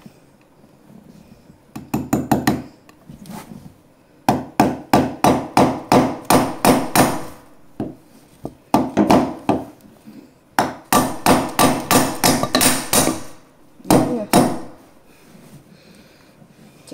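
Hammer blows on the wooden bed base, driving in a fixing for a bed rail's mounting bracket. The blows come in quick bursts of about four to five a second, with short pauses between the bursts.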